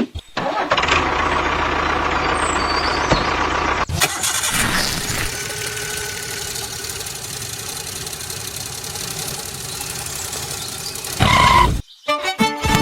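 An engine running steadily, its sound shifting about four seconds in, with a short louder burst near the end.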